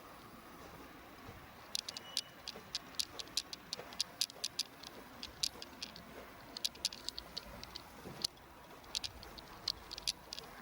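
Wood fire crackling with irregular sharp pops, starting about two seconds in and coming several times a second, with a short lull shortly before the end.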